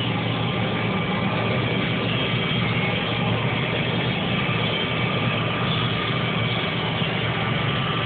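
John Deere combine running steadily while harvesting wheat, heard from inside the cab: a constant low drone of engine and machinery, with a faint steady high whine on top.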